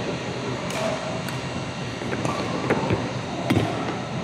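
Badminton rackets hitting a shuttlecock during a doubles rally: several sharp hits about a second apart, over steady hall noise.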